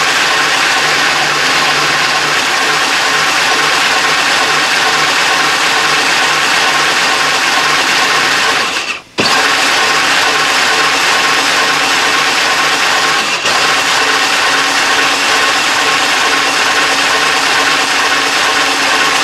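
Power Wheels ride-on toy car's electric drive motors and plastic gearboxes whirring and grinding steadily as it spins its wheels in place in a burnout. The sound cuts out for under a second about nine seconds in, then picks up again.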